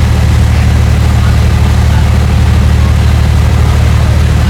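A fishing boat's engine running steadily: a loud, even, low drone.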